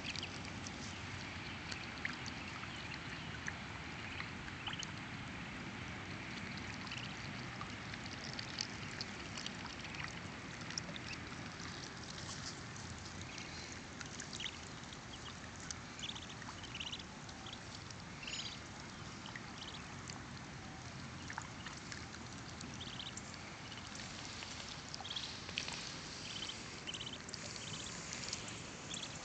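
Ducklings peeping: short, high calls scattered throughout, more frequent in the second half, over a steady wash of water lapping at the shore.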